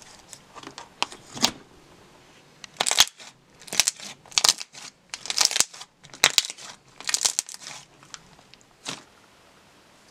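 Thick slime being pressed and kneaded by hand, making sticky squishing sounds in irregular clusters of small clicks and pops; it goes quiet about nine seconds in.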